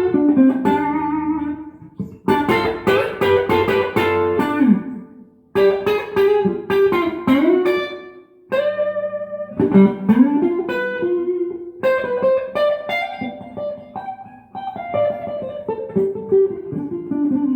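G&L CLF Doheny V12 electric guitar played through an amp: single-note melodic phrases with several string bends, in short runs broken by brief pauses.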